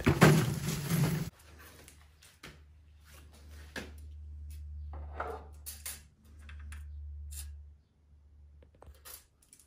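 Wheels of a Beta folding tool trolley rolling over wooden decking for about a second, a steady rushing noise. After that, faint clicks and knocks of handling over a low hum.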